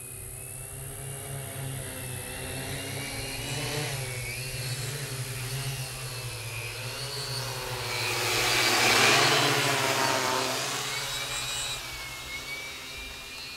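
Multirotor drone with 400 kV brushless motors and 14-inch propellers flying back in to land: a steady propeller drone with a whine that wavers up and down as the motors change speed. It swells to a louder rush about nine seconds in, then eases off.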